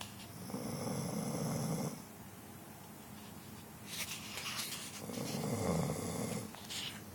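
A sleeping dog snoring: two long snores about four seconds apart, each lasting about a second and a half.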